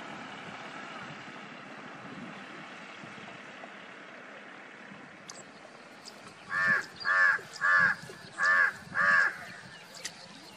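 A bird gives five loud calls in quick succession, each about a third of a second long, over a steady background rush. The calls begin about two-thirds of the way in.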